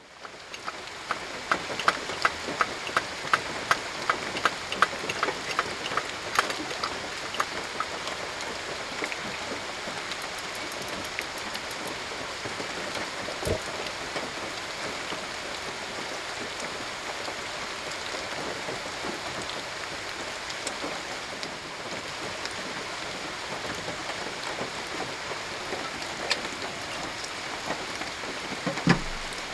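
Steady rain falling in an even hiss. Over the first several seconds a run of sharp, evenly spaced ticks, about two a second, fades out. There is a soft thump about halfway through and another near the end.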